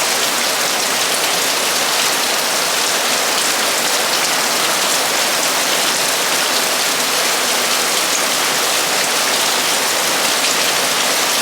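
Torrential rain drumming steadily on a metal roof, a dense even hiss of countless drops with faint individual ticks.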